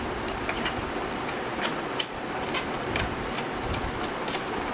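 Light clicks and taps of a 3D-printed PLA plastic hood being pressed down and locked onto an RC model tractor, with a sharper click about two seconds in, over a steady hiss.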